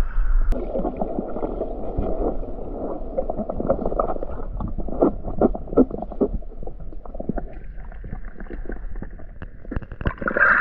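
Underwater sound picked up by an action camera in its waterproof housing: muffled gurgling and bubbling with a scatter of small clicks and crackles. Near the end the camera breaks the surface and a brighter splash of water comes in.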